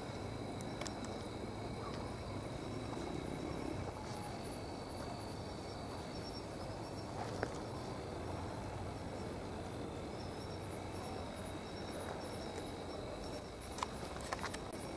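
Crickets and other night insects chirping: a steady high trill with rows of short, rapidly repeated chirps above it, over a low steady hiss. A few faint clicks come near the end.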